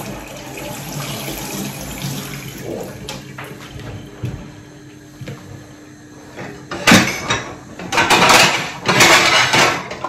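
Water running from a kitchen tap into the sink as hands are washed, with louder gushes and splashing in the last three seconds before it stops.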